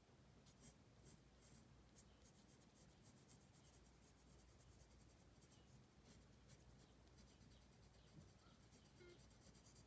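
Faint scratching of a pencil on drawing paper in many short, quick strokes, over a low steady hum.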